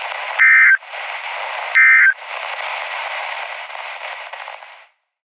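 Emergency Alert System end-of-message code: short, loud bursts of two-pitch digital data tone, one at the start and another about a second and a half later, over steady radio static. The static cuts off suddenly near the end, marking the end of the broadcast message.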